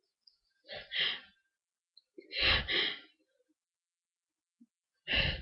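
A person building up to a sneeze: three sharp gasping breaths, each in two quick parts, with the middle one the loudest.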